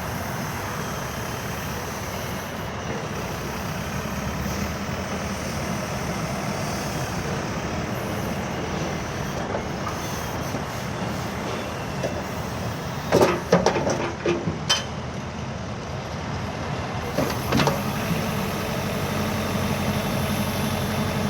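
Diesel engine of a JCB 3CX backhoe loader running steadily, with a cluster of sharp clanks and a brief hiss a little past halfway and another clank shortly after.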